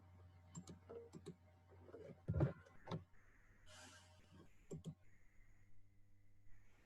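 Faint scattered clicks and taps, with a louder knock about two and a half seconds in and a short hiss near the middle, over a low hum.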